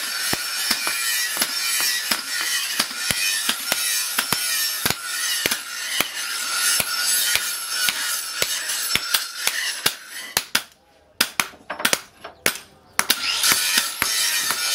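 Hand hammer striking a red-hot knife blade, forged from an old bearing, on a steel post anvil: fast runs of sharp blows, thinning to a few separate strikes about ten seconds in, then quickening again near the end. A steady high hiss lies under the blows.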